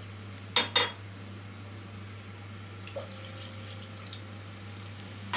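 Milk being poured from a glass into a metal cooking pot, with two sharp knocks about half a second in. A smaller knock comes about three seconds in and is followed by a faint ringing tone.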